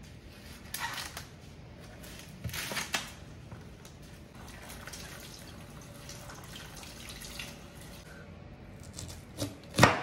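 Green husks being torn and stripped from an ear of corn, two crackly rustles in the first three seconds, then a kitchen tap running over the husked cob as it is rinsed in the sink. A sharp knock just before the end.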